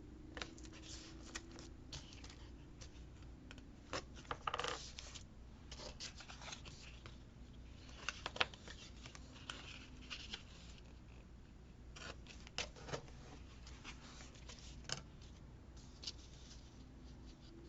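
Scissors snipping paper and paper being handled, in scattered short crisp clicks and rustles.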